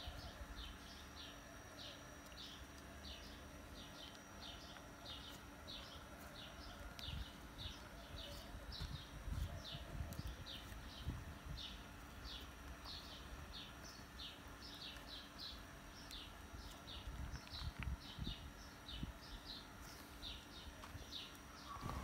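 A bird chirping over and over, short high chirps about twice a second, faint and steady, with scattered low knocks and rumbles underneath.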